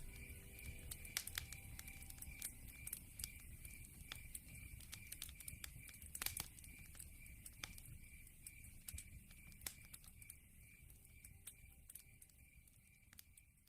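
Faint wood fire crackling in a fireplace: irregular sharp pops and snaps over a low rumble of flames, fading out near the end.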